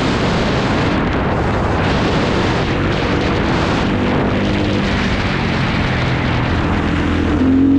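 KTM 350 EXC-F single-cylinder four-stroke dirt bike engine running while riding, under heavy wind rush on the microphone. The engine note sits low and faint through the middle and picks up again near the end.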